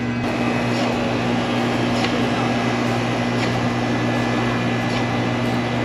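Soft-serve ice cream machine's motor humming steadily with a low, even drone. A few faint light ticks sound over it.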